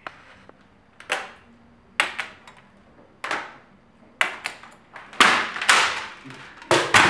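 A plastic computer keyboard being broken apart by hand: about seven sharp cracks and snaps, each with a short crackling tail, coming closer together near the end.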